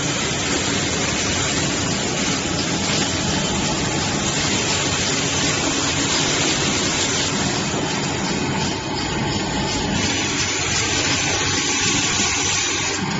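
Automatic toilet-roll and kitchen-towel packaging machine running: a steady, dense mechanical noise.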